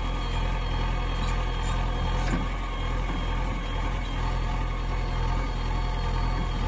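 JCB 3DX backhoe loader's diesel engine running steadily while its backhoe arm swings round and lowers toward the ground to dig.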